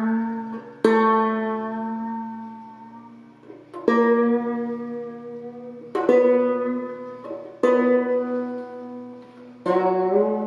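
Banjo strummed: five chords, about one every two seconds, each left to ring out and fade. The banjo is freshly tuned with a new bridge, and the chords are being played to check it.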